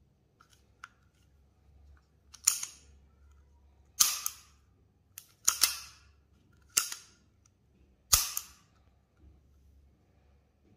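Restored Astra 4000 Falcon pistol's action worked by hand: five sharp metallic snaps, about one every second and a half, with a few light clicks before them.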